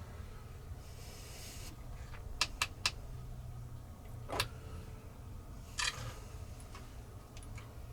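A few short, faint clicks and taps scattered through, over a low steady hum.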